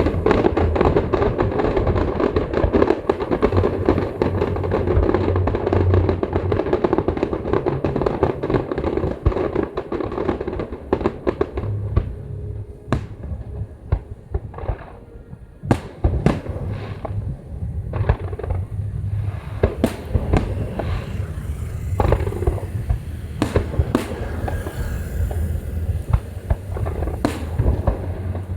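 Aerial fireworks bursting: a dense barrage of deep booms and crackling for about the first ten seconds, then single sharp bangs at irregular intervals.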